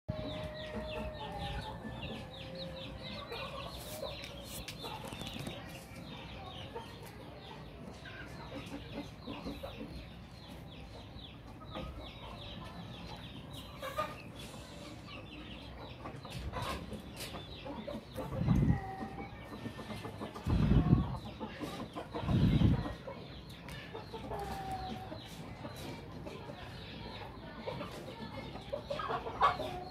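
Chickens clucking and giving short calls on and off. Midway through come three loud low rumbles, a second or two apart.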